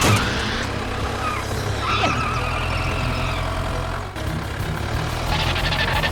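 Tractor engine running steadily with a low rumble, with a wavering higher whine about two seconds in.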